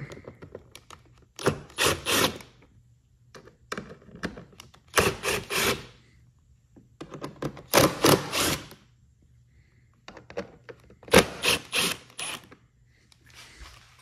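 Cordless Milwaukee impact driver with a Torx 25 bit backing out the four bolts that hold a snowmobile's gauge. It sounds as four rattling bursts of about a second each, a few seconds apart.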